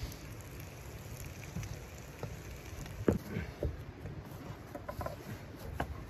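Bacon frying in a cast iron pan: a sizzle with scattered sharp pops and crackles, the loudest about three seconds in.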